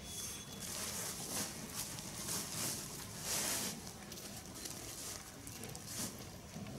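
Dry, grainy concentrate feed and a woven plastic feed sack rustling as they are handled by hand, in a string of short, irregular hissy rustles.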